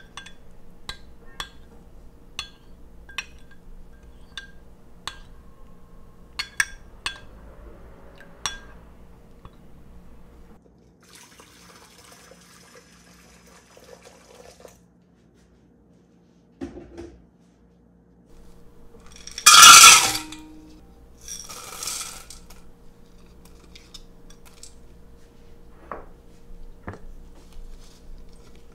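A metal spoon clinking against a small glass bowl again and again while stirring ground flaxseed into water. Then hot water is poured into a large glass mixing bowl, and about two-thirds of the way through comes a loud clatter of bowls.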